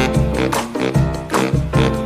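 Upbeat background music with a steady beat and horn-like pitched notes, in a swing style.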